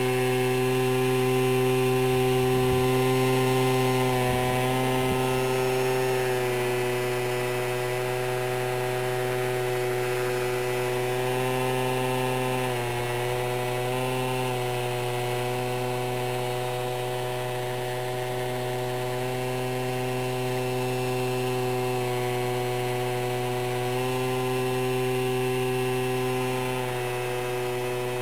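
Electric motor and propeller of a foam VTOL model plane hovering nose-up in a prop hang: a steady whine with several tones together. Its pitch dips and recovers briefly a few times, around halfway through and near the end, as the throttle is worked to hold the hover.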